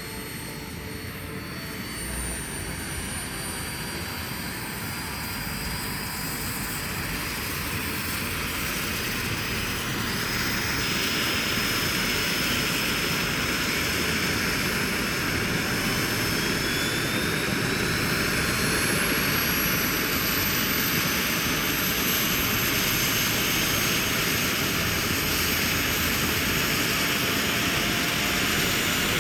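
Large radio-controlled model helicopter running, its engine and rotors giving a steady noise with high whining tones that slowly climb in pitch. It grows louder over the first ten seconds or so, then holds steady.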